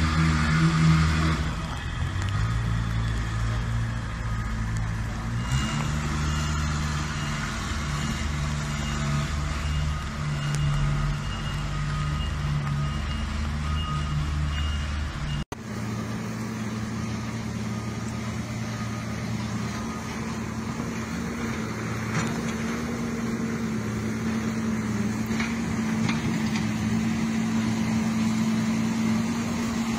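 Diesel engine of a wheel loader running steadily. Just past halfway it cuts off abruptly to a second loader engine running with a steadier, even hum.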